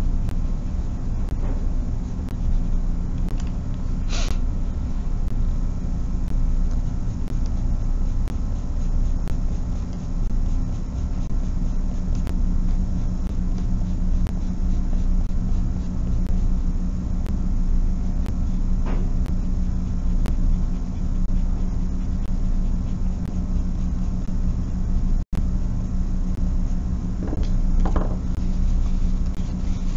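Steady low mechanical hum with no change in level. A few faint brief sounds rise above it, and the sound drops out for an instant about 25 seconds in.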